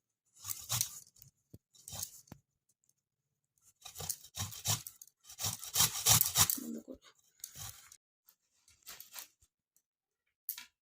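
Soft boiled amla (Indian gooseberries) rubbed over a hand grater: irregular runs of short rasping strokes, several in quick succession, with pauses between the runs.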